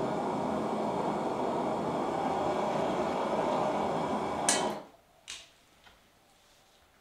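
A forge running with a steady roar, shut off with a sharp click about four and a half seconds in so that the roar dies away almost at once, followed by another click and a faint tick.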